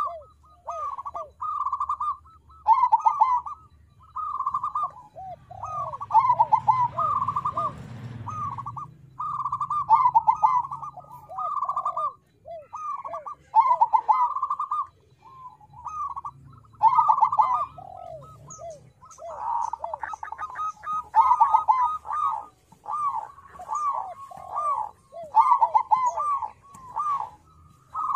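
Zebra dove (perkutut), a crossbred song bird, singing its cooing song. It gives phrase after phrase, each a quick rolling coo with lower falling notes, with short pauses between.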